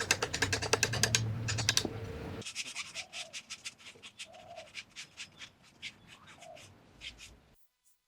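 Quick, repeated scratching strokes on a wooden board, fast and loud at first, then quieter and more spaced out, cutting off suddenly near the end.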